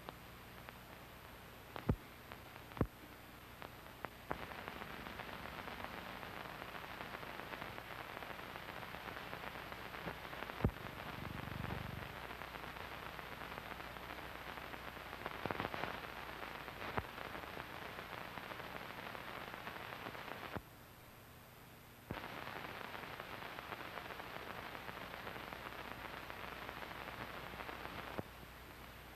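Steady hiss and crackle of an old film soundtrack, with a few sharp clicks and the noise level jumping up and down at several points.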